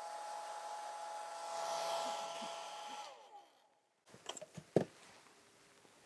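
Hand-held hair dryer blowing steadily, then switched off about three seconds in, its motor tones gliding down as it winds down. About a second later come a few sharp clicks and one louder knock.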